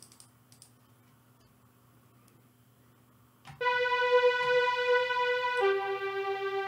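Near silence with a faint hum and a few faint clicks. About three and a half seconds in, a strings part starts playing through the RoughRider 3 compressor plugin: a held chord that changes to a lower chord about two seconds later.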